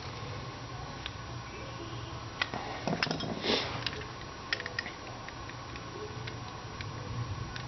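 Scattered light clicks, taps and a brief rustle of small parts and packaging being handled, over a steady low hum; the busiest handling is in the middle.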